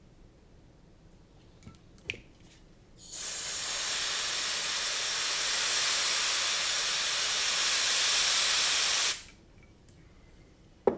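A handheld spray can hissing in one steady blast of about six seconds that starts about three seconds in and cuts off sharply. A couple of small clicks of handling come before it.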